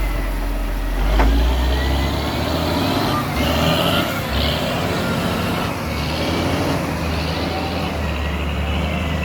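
Diesel engines of a large excavator and dump truck working, a steady low drone. There is one sharp knock about a second in.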